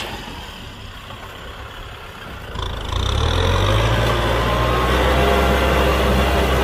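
Kubota M6040 tractor's diesel engine running low for about two and a half seconds, then revving up, rising in pitch and getting much louder, and holding a steady higher speed.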